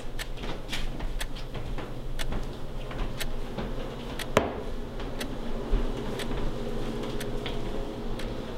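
Irregular faint clicks and creaks over a low, steady hum, with one sharper click about four and a half seconds in.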